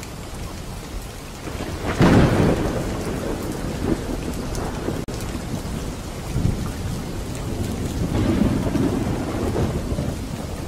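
Thunderstorm: steady rain with a loud roll of thunder about two seconds in that slowly dies away, and a second, weaker rumble after about eight seconds.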